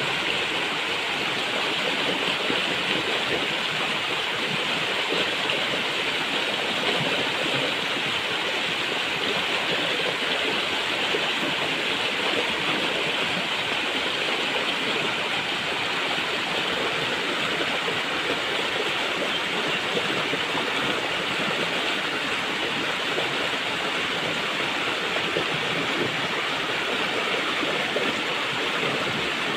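Flowing water rushing steadily, an even hiss with no separate splashes or breaks.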